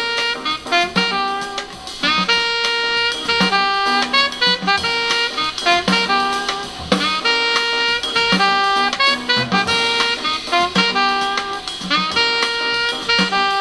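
Jazz alto saxophone melody with a drum kit, played back through a small Pioneer loudspeaker driven by a homemade 1 W AN17811A amplifier and recorded through the air by a microphone.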